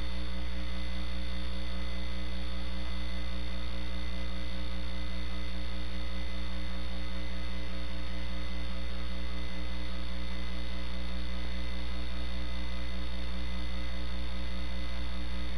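Steady electrical mains hum, a low buzz with evenly spaced overtones that stays unchanged throughout, with no speech.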